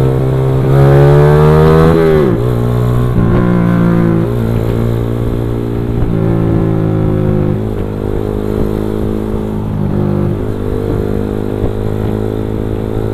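Motorcycle engine accelerating, its pitch climbing for about two seconds and then dropping sharply as the throttle eases. It then runs at a fairly steady pitch, with a few brief dips and rises as the throttle changes.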